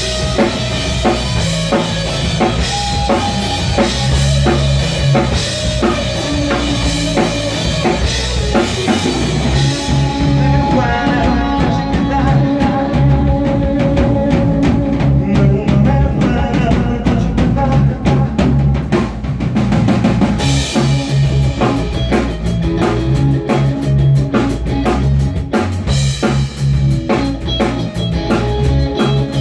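Live rock band playing loud: electric guitar over a drum kit and bass. The sound thins out for about ten seconds in the middle, then the full band comes back in about twenty seconds in.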